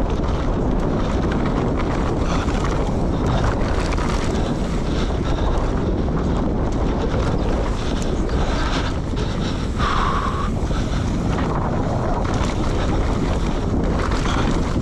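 Enduro motorcycle being ridden over rough ground, heard from the rider's camera: wind rushing over the microphone with engine noise under it and many short knocks from the terrain. A brief higher tone sounds about ten seconds in.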